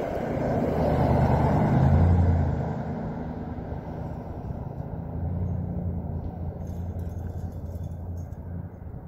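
A motor vehicle passing on the road, its engine hum and tyre noise swelling to a peak about two seconds in and then fading away, with a low engine hum rising again later.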